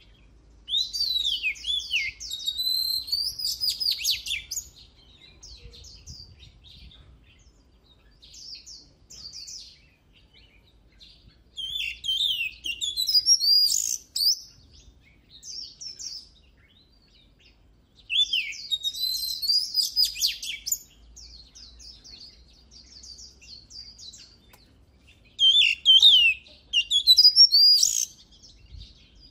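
Oriental magpie-robin singing: four loud song phrases of two to four seconds each, opening with falling slurred whistles and running into quick varied notes, with softer chirps between the phrases.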